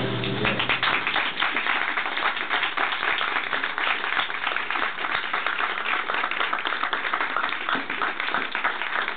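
Audience applauding with dense clapping, which begins as the last notes of a harp die away in the first second.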